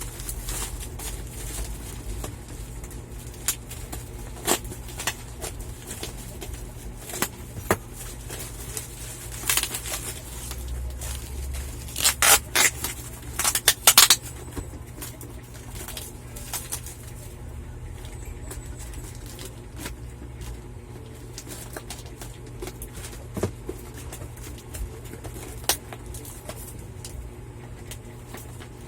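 Parcel packaging being handled and unwrapped: scattered clicks and rustles, with a run of louder crinkling bursts about twelve to fourteen seconds in.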